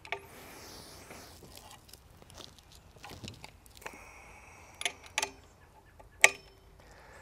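Light handling noise of hand tools and metal parts on a pump motor, with a few short sharp metallic clicks in the second half, the loudest near the end.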